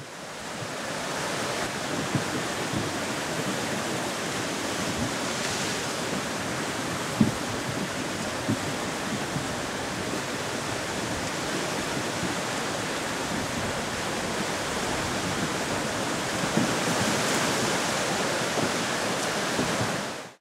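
Steady loud roar of a flooded brook, fast muddy water churning over itself in standing waves. A brief low thump sounds about seven seconds in.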